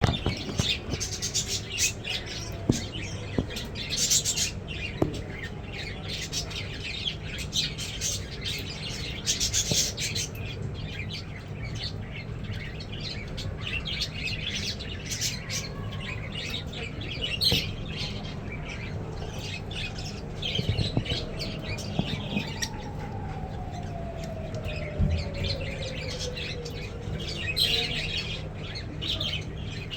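Lovebirds chattering in a cage: many short, shrill chirps and squawks that come thick and fast.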